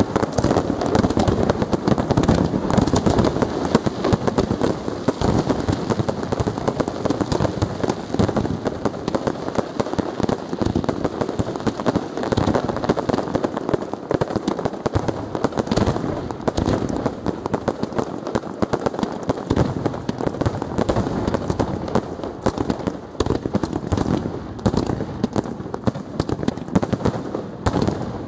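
Professional fireworks display: a rapid, continuous barrage of aerial shell bursts, many bangs a second, with no let-up.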